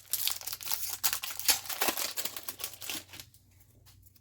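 Booster pack wrapper crinkling and tearing as it is opened, for about three seconds before stopping.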